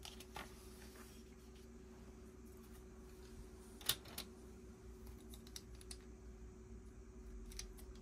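Plastic Lego pieces clicking as they are handled and pressed together: a few scattered sharp clicks, the loudest about four seconds in, over a faint steady hum.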